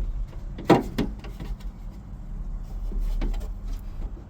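One sharp knock about two-thirds of a second in, then a few lighter clicks and taps, as a loose car part is pushed and knocked while being fitted back into place. It will not seat because a rubber grommet is missing. A steady low hum runs underneath.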